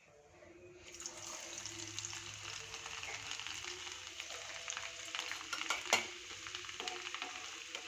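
Cut garlic cloves sizzling in warm mustard oil in a pan on a medium flame. The sizzle builds up over about the first second and then holds steady, with light clicks of a spoon stirring and one sharper click about six seconds in.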